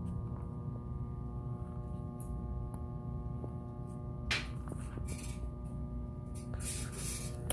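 Steady low hum with several faint steady tones layered over it, with a few light clicks; from about four seconds in, brief rustling noises come and go.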